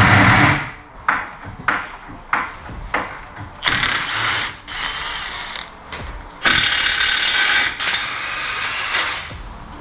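Cordless impact wrench undoing the front wishbone's nut and bolts: several short bursts, then longer runs about four seconds in and again from about six and a half seconds to nine.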